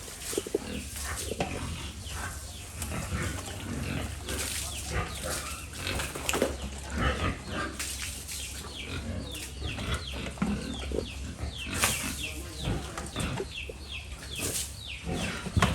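Pigs grunting and squealing, with many short high-pitched squeals coming in quick succession.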